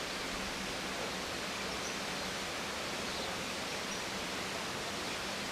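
Steady, even outdoor rushing noise that does not change, with no clear single event in it.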